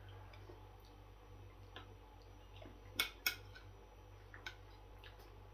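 Fork clinking and scraping against a plate of curry: a few faint ticks, with two sharper clicks about three seconds in.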